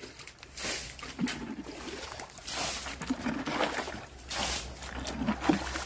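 Shallow stream water splashing and sloshing in a series of irregular swishes about a second apart, as someone wades and feels around in it for fish.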